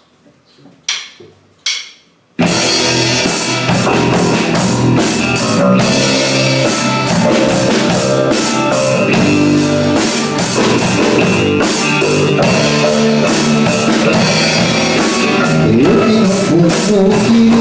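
A few sharp clicks, then about two seconds in a rock band starts the song's instrumental intro: drum kit with cymbals, electric guitar and electric bass playing together at full level.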